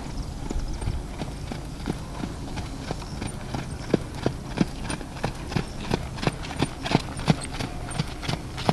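Welsh Cob's hooves striking the sand arena footing at a steady trot, about three beats a second. The beats grow sharper and louder from about four seconds in as the horse comes close.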